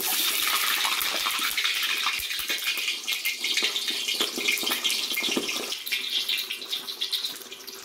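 A whole onion dropped into very hot cottonseed oil in a cast-iron kazan, setting off loud sizzling and crackling the instant it lands. The sizzle eases a little near the end. This is the oil being fried off with an onion so it loses its raw smell.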